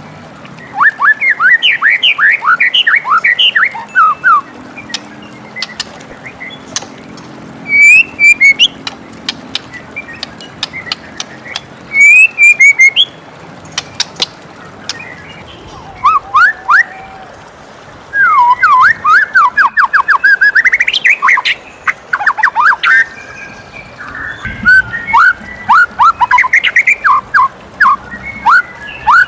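White-rumped shama (murai batu) singing in bouts of rapid whistled notes that sweep up and down, with short pauses between phrases.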